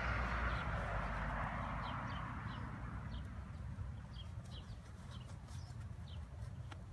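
Honeybees from an opened package buzzing in a dense mass, loud at first and fading over the first few seconds, with short high bird chirps repeating throughout.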